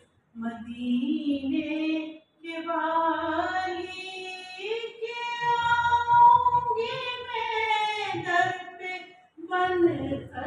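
A woman singing a naat solo, without instruments, in long drawn-out phrases with held notes, the longest held for a few seconds around the middle, and short breaks between phrases.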